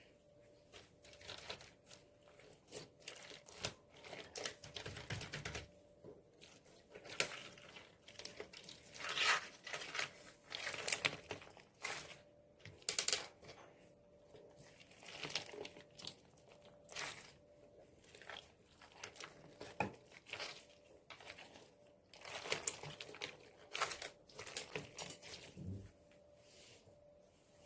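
Slime being kneaded, pressed and stretched by hand, making irregular crackling, crunching and popping sounds that come in bursts of varying loudness.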